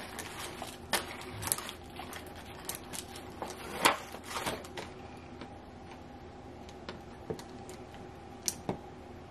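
Makeup brushes and products clicking, tapping and clattering as they are rummaged through and picked up and set down, in irregular small knocks with the sharpest about four seconds in and a few sparser ones near the end.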